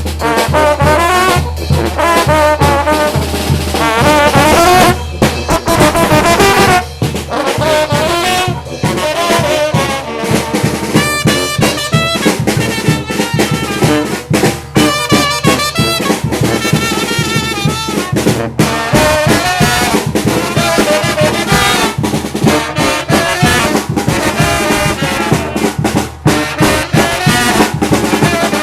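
A Mexican banda playing live: trumpets and trombones carry the tune over drums keeping a steady beat.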